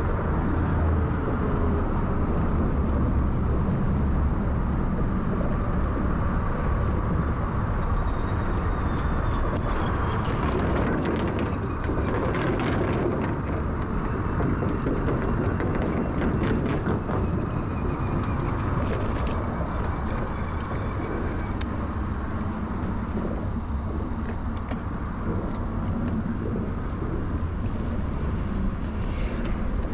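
Steady wind and rolling noise from riding an early-1970s Peugeot UJ-10 ten-speed bicycle, with scattered clicks and rattles from the bike, a few about a third of the way in, midway and near the end.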